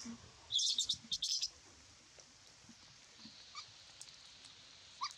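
A young macaque squealing in a cluster of short, shrill bursts about half a second to a second and a half in.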